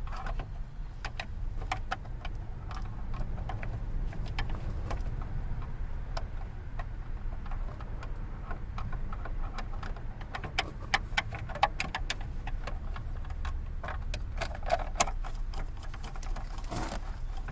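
Irregular light clicks and ticks of screws being started and snugged by hand into the underside of the steering column cover, with denser runs of clicks about ten seconds in and again near the end.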